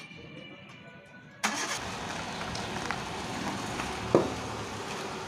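Hyundai i10's engine started about a second and a half in, then running steadily. A single sharp knock near the end.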